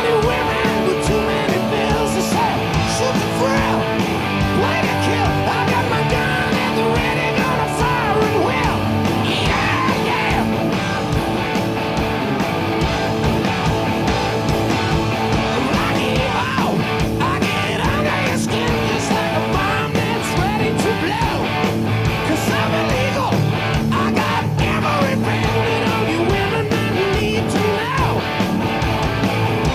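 Rock music with guitar and singing, playing continuously at a steady loud level.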